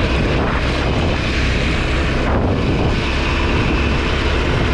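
KTM 890 Adventure R's parallel-twin engine running under way, heard with wind rushing over the helmet camera's microphone.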